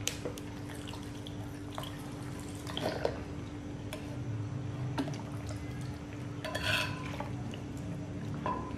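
Fish sauce poured from a bottle, trickling and dripping, with a few light clicks and clinks of the bottle and kitchen utensils.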